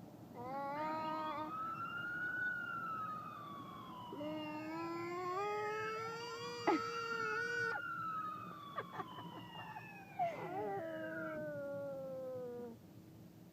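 Electronic sound-effects toy playing several overlapping pitched tones that slide slowly up and down like sirens, with a few short clicks among them; the sounds stop near the end.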